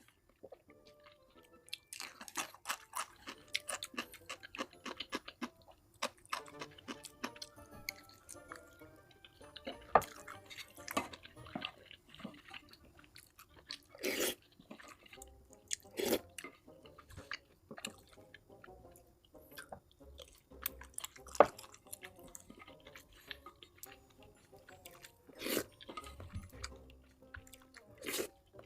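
Close-miked chewing and eating: wet mouth smacks and crunches in irregular clusters, the loudest few about 14, 16, 21 and 25 seconds in.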